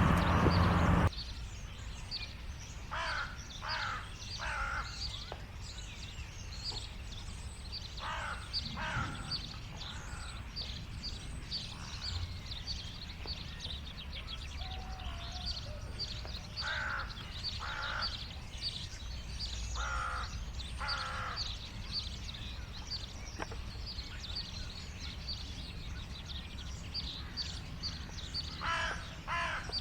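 Wild birds calling: a crow-like bird gives short runs of two or three caws every few seconds over constant high, rapid chirping of small birds, with a low wind rumble underneath. A louder noisy sound cuts off abruptly about a second in.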